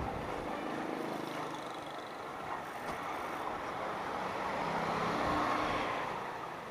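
Single-cylinder Honda CG 160 Start motorcycle engine running at low speed, its note swelling a little about five seconds in.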